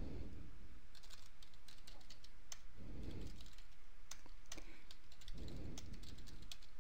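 Typing on a computer keyboard: short runs of key clicks with brief pauses between them.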